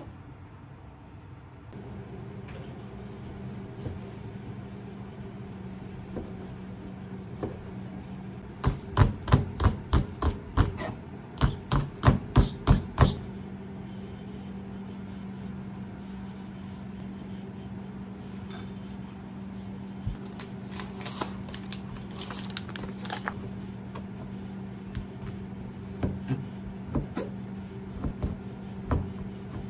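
Kitchen knife chopping green onion on a plastic cutting board in two quick runs of strokes, about four a second, then slower cuts through a block of ham near the end. A steady low hum runs underneath.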